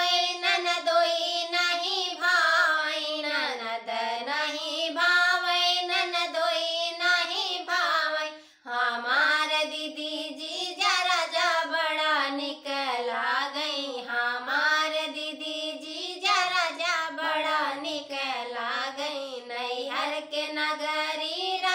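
Two women singing an Awadhi folk song in unison, voices only, with a short break for breath about eight and a half seconds in.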